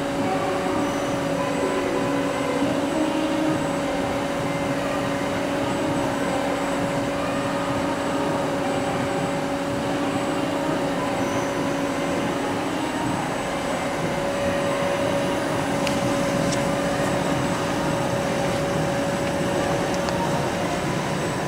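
Hardinge Quest GT27 CNC lathe running under power: a steady mechanical hum with a constant pitched drone, and a few faint ticks near the end.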